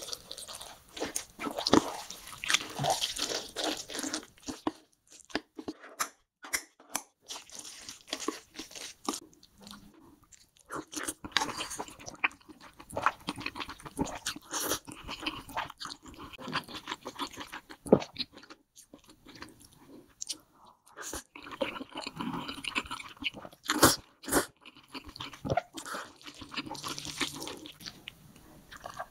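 Close-miked mukbang eating sounds. Chopsticks stir thick chili sauce through a plate of noodles, with wet, sticky squelching for the first few seconds. Then come slurps and chewing of mouthfuls of spicy noodles, with crisp crunches and sharp clicks between bites.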